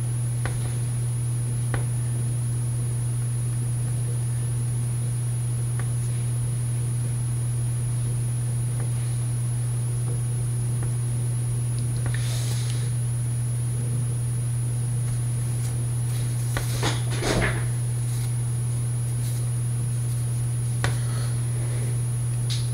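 Steady low machine-like hum, with a few faint clicks and two short rustling or scraping noises, one about halfway through and a slightly longer one about three quarters of the way in.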